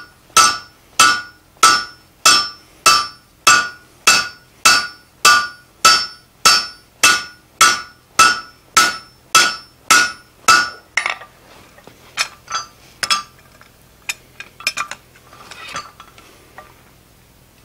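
Hand hammer striking a red-hot steel hardie blank on the anvil, a steady blow about every 0.6 s, each ringing with the anvil's tone, as the twisted piece is forged to clean it up and straighten it. About 11 seconds in the steady blows stop, giving way to a few lighter, irregular taps and clinks.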